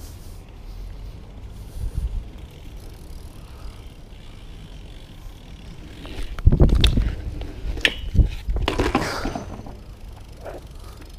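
BMX bike rolling over paving slabs, with low rumble and wind buffeting on the chest-mounted GoPro. About six and a half seconds in comes a loud run of thumps and metallic clattering over two or three seconds as the rider comes off and the bike hits the ground.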